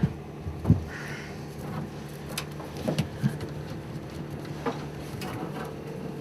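Cables being pulled and pushed through a packed cable duct: scattered knocks, taps and a brief rustle of handling, over a steady low hum.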